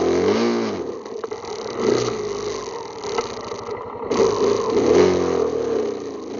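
ATV engine revving up and down, its pitch rising and falling several times as it rides the trail, with a few knocks from the machine over rough ground.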